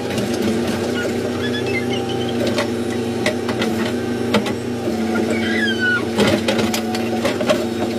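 Backhoe loader's diesel engine running steadily, heard from inside the cab, with scattered knocks and rattles as the hydraulic boom and bucket work the trench.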